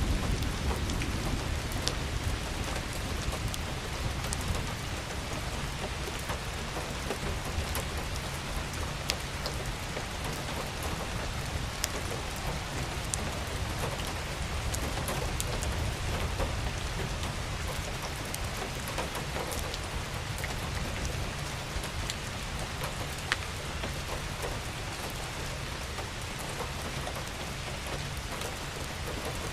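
Steady rain falling, a continuous hiss with many sharp drops ticking through it over a constant low rumble.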